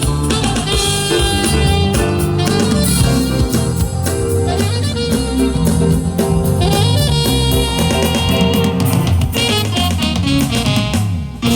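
A band playing music, with a drum kit keeping a steady beat under bass notes and a melody line.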